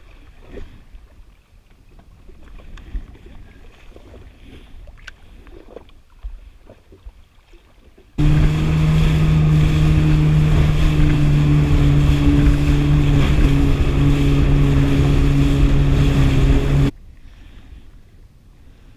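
Yamaha WaveRunner FX HO jet ski running at speed: a loud, steady engine drone over rushing water and wind. It starts abruptly about eight seconds in and cuts off just as abruptly about nine seconds later. Before it there is only quiet water and wind noise with a few small clicks.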